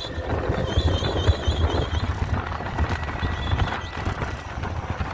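Ola S1 Pro Gen 2 electric scooter on the move, with road and wind rumble under an on-and-off, high-pitched wavering squeal ('kuy'): the abnormal noise the owner says comes in between when he gives throttle. The squeal is clearest about a second in and comes back briefly near three seconds in.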